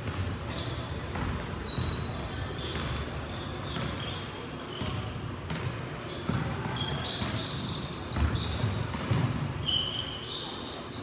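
Basketball game play on a gym court: a basketball bouncing with scattered knocks, and many short high sneaker squeaks on the floor, over a background of voices.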